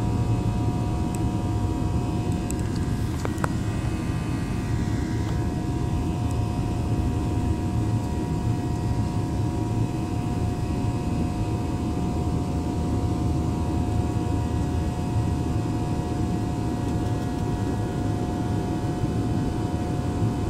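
Jet airliner cabin noise from the turbofan engines and airflow: a steady low rush with a few steady whining tones above it, and a brief falling tone a few seconds in.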